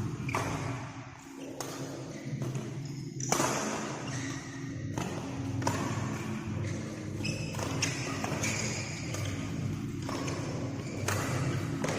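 Irregular thuds about every one to two seconds, some with a short high squeak or ping, over a steady low hum.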